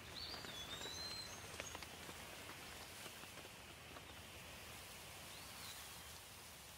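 Rain falling steadily on foliage, with a few louder individual drops in the first two seconds. A bird gives a few short whistled calls about a second in and one more near the end.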